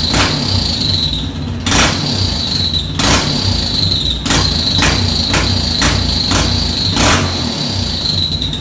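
Yamaha Fazer 250's single-cylinder engine running with an ML Competition popping exhaust, the pipe letting out loud sharp pops and cracks about nine times, bunched together past the middle. A thin high whine runs underneath.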